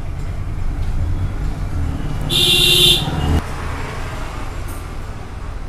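Steady low background rumble, with a short, louder tone lasting under a second about two and a half seconds in.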